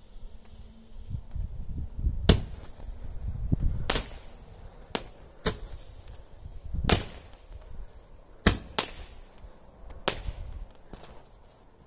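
Roman candle firing: a sharp pop as each star is launched, about nine shots at roughly one-second intervals starting about two seconds in, two of them close together near the middle.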